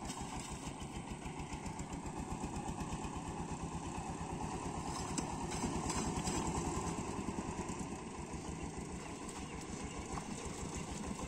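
An engine running steadily with a fast, even chugging throb, a little louder around six seconds in.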